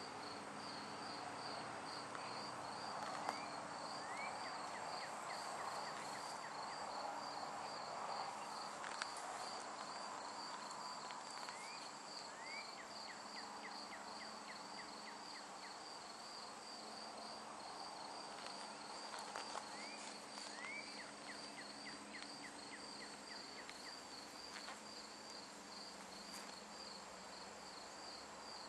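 Insects chirping in a steady pulse of about two chirps a second over a continuous high trill, with a few short rising chirps now and then.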